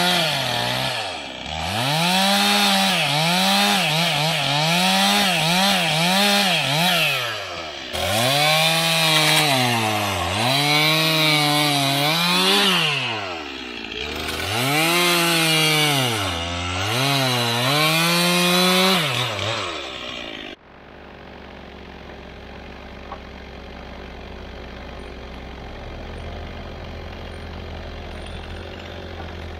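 Stihl two-stroke chainsaw running at high revs while cutting logs, its pitch sagging and recovering over and over as the chain bites into the wood and frees up, in three long runs. About twenty seconds in it gives way abruptly to a much quieter engine running steadily at low idle.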